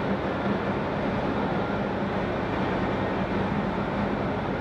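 Steady drone of heavy machinery: an even hum with a rushing noise over it, unchanging throughout.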